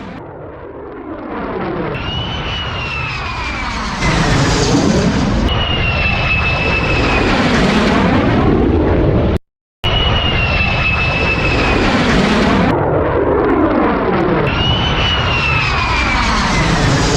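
Fighter jet flying past: a loud jet rush with high whining tones that fall in pitch and a tone that sweeps up and down as it passes. The sound cuts out for a split second about halfway through, then the same pass starts again.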